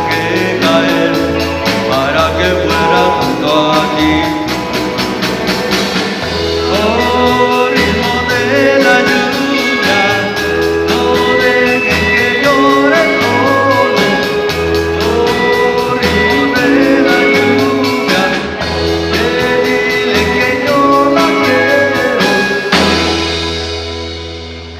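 Band music: the closing instrumental part of a ballad, with drums, bass and a melody line over a steady beat, dying away near the end.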